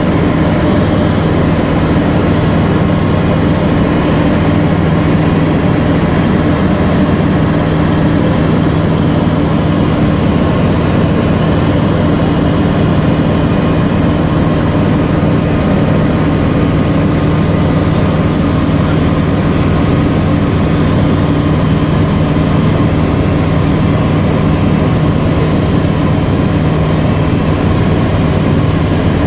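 Bristell NG5 ultralight's piston engine and propeller in steady cruise flight, heard from inside the cockpit: a loud, even drone.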